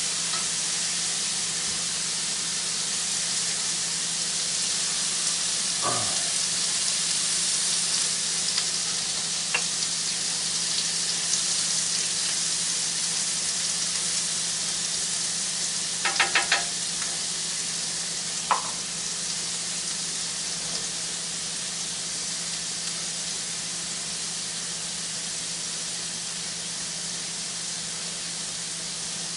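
Diced ham and bread frying in butter on a flat-top griddle, a steady sizzle throughout. A few short clicks and taps of a utensil break in, with a quick rattle of several about halfway through.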